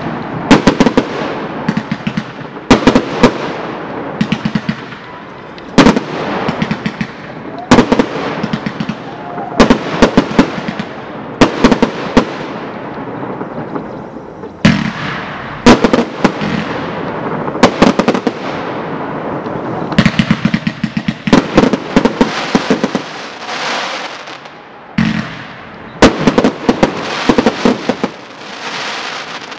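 Aerial fireworks display: shells burst with sharp bangs in quick clusters, roughly every one to two seconds, each trailing off in echo.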